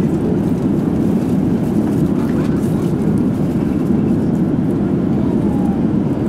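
Steady low roar of a Boeing airliner's cabin in flight: engine and airflow noise heard from a passenger seat.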